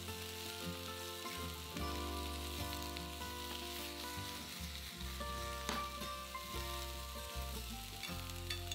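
Chicken pieces and chopped onion, peppers and shiitake sizzling in a frying pan as they are stir-fried, a steady hiss with a few light clicks.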